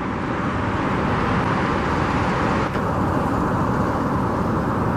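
Steady road traffic noise: a continuous even rush of passing cars, with a faint steady tone underneath.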